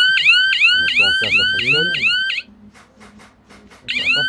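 Koketsu airsoft prop bomb sounding its electronic siren: a rapid warbling chirp, about four a second, that stops after about two and a half seconds and starts again near the end. It signals that the bomb has been defused and the round won.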